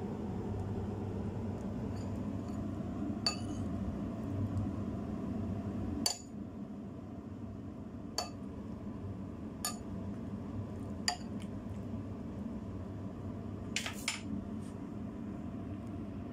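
Metal ladle clinking against a ceramic bowl and pot while sopas soup is served: about seven sharp, short-ringing clinks a second or two apart, two in quick succession near the end. A steady low hum runs underneath and drops in level about six seconds in.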